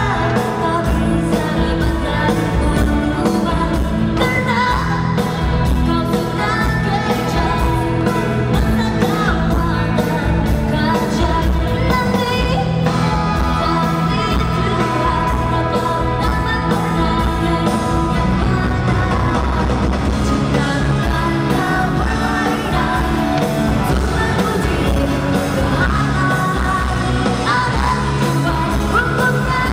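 Live rock band playing loud and continuously, with electric guitars, drums and keyboards behind a female lead singer, heard from among the audience.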